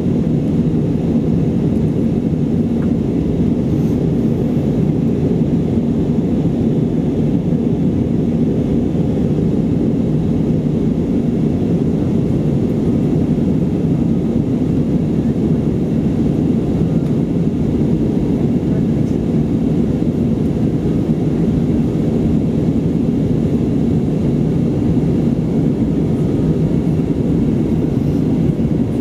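Airbus A320 cabin noise during the climb after takeoff: a steady, low, even drone of the engines and rushing air, heard from inside the cabin by the wing.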